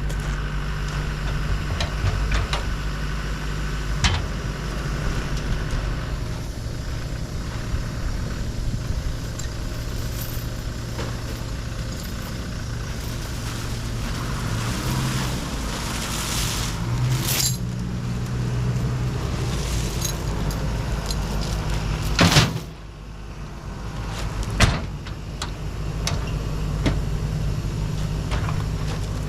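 An engine idling steadily, with scattered metal clanks and knocks as loading gear is put away; a loud bang about 22 seconds in is the loudest sound.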